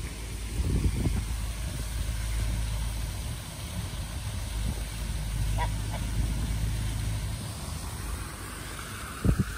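Steady low wind rumble on the microphone, with a brief duck call or two a little past halfway and a sharp double thump near the end.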